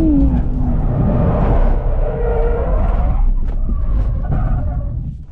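Nissan Z Nismo's twin-turbo V6 note drops away as the driver comes off the throttle, then a heavy rushing, rumbling noise takes over as the car slides off the track and its tyres scrub across grass and dirt. The noise fades near the end.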